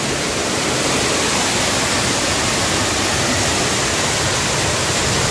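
Heavy rain pouring down in a steady, unbroken rush.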